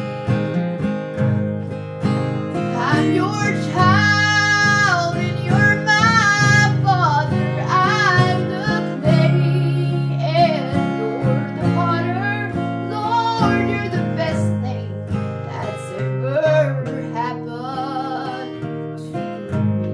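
A woman singing a gospel song, accompanied by a strummed acoustic guitar.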